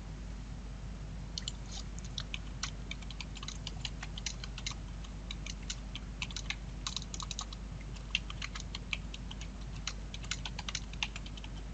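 Typing on a computer keyboard: an irregular run of key clicks that starts about a second in, over a low steady hum.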